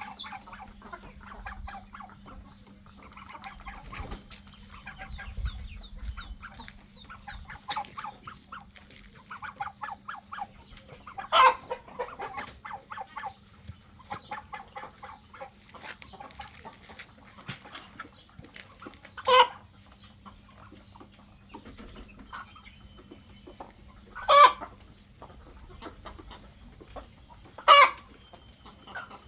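Chickens clucking in quick runs of short notes, with four much louder short calls standing out in the second half.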